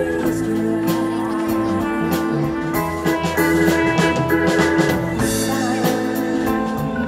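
A live band playing a song: a drum kit with frequent cymbal and drum hits under held keyboard and guitar chords, with a woman singing into a handheld microphone.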